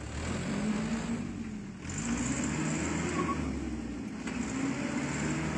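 Dump truck's engine revving hard under load, pitch climbing, dropping away sharply about two seconds in, then revving up again and holding, as the truck struggles for grip on a slippery mud road.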